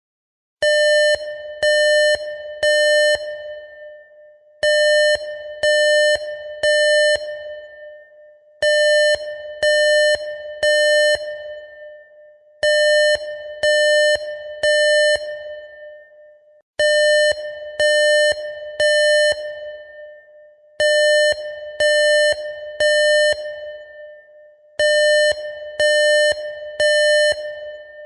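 Electronic emergency alarm sounding buzzy beeps in groups of three. Each group repeats about every four seconds, seven times, and each beep trails off in an echo. The three-beep pattern is the temporal-three evacuation signal used by fire alarms.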